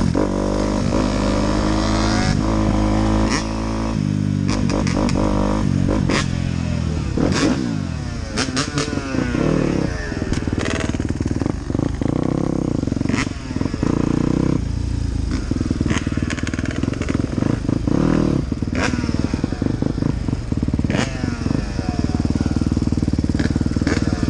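Dirt bike engine heard from the rider's seat, its revs rising and falling over and over as it is ridden through the gears, with frequent sharp knocks and rattles.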